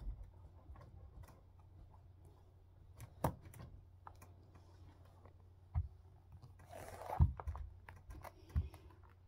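Handling sounds from unfastening the metal ankle-strap buckles of patent-leather high-heel shoes and slipping one off: a few sharp clicks and taps, with a short burst of rustling about seven seconds in.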